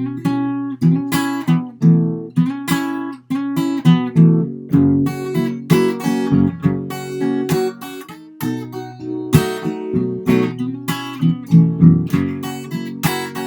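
Acoustic guitar played fingerstyle: a steady run of picked treble notes over held bass notes, left to ring out.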